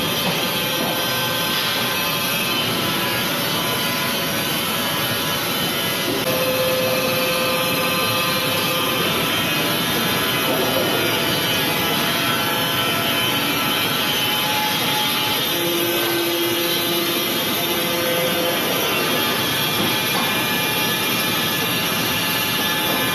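Wood-Mizer industrial band sawmill running and sawing through wood: a loud, steady, unbroken mechanical noise with faint brief tones in it.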